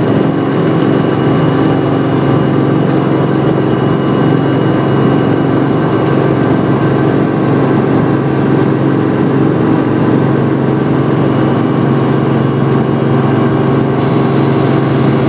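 Helicopter engine and rotor drone heard from inside the cabin in flight, loud and steady. A thin high whine fades out about five seconds in.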